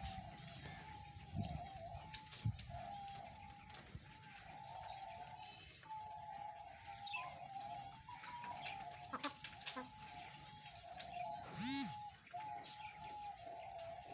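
Backyard chickens: a faint continuous wavering bird call that dips in pitch about twice a second, with scattered short clicks and one brief louder call near the end.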